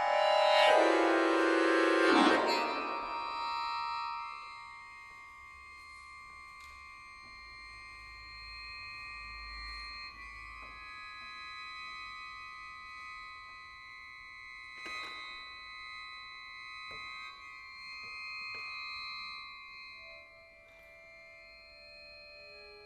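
Chromatic button accordion playing loud, dense chords for about two seconds, then holding one long high note that fades out near the end, with a few soft clicks in between. Lower notes come in just before the end.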